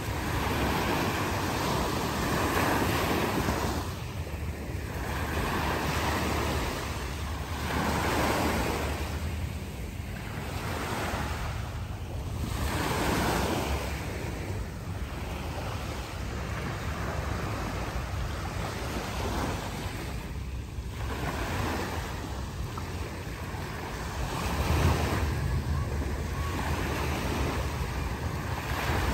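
Small waves washing onto a sandy beach, each swell of hiss rising and falling back every two to three seconds. Under it runs a steady low rumble of wind on the microphone, with a stronger gust near the end.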